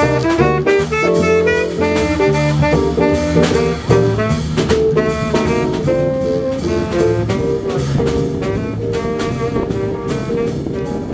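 Small jazz combo playing a swing tune: a saxophone carries the melody over guitar and a steady drum beat, holding a long note through the last few seconds.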